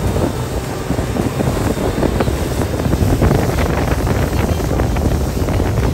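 Wind buffeting the microphone on a motorboat under way, over the steady rush of water churned up behind it.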